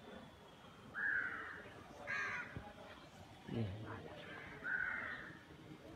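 Crow cawing outdoors: three loud, harsh caws a second or two apart, with a brief low sound falling in pitch between the second and third.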